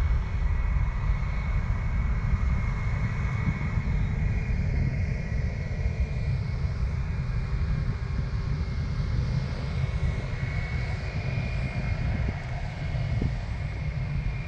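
Jet airliner engine noise: a steady low rumble with a thin high whine held throughout. It comes from a Southwest Boeing 737-700 climbing away after takeoff, with other airliners on the ground.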